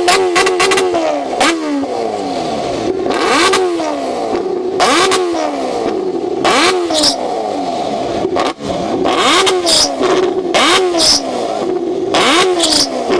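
Sport motorcycle engine revved hard against the rev limiter: a rapid stuttering cut at the start, then the revs are blipped up and let fall back again and again, about every second and a half, with crackling pops through the exhaust as it spits blue flames.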